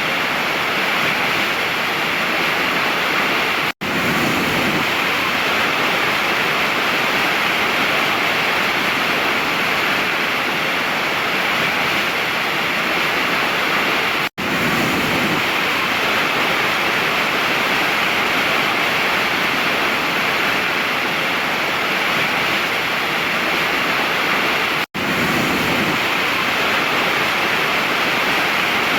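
Steady rushing of a waterfall, falling water in a constant even hiss, that cuts out for an instant three times about ten seconds apart.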